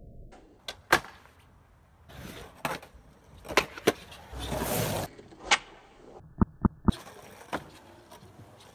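Skateboard tricks on concrete: a string of sharp pops and clacks as the board's tail strikes and the wheels land, three in quick succession past the middle, with about a second of wheels rolling or scraping on concrete around halfway through.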